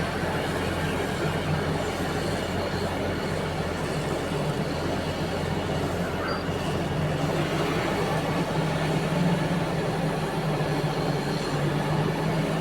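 Diesel engines of heavy mining machinery running steadily, a constant engine drone with no breaks.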